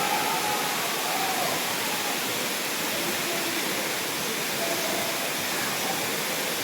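Waterfall: falling water making a steady rushing noise.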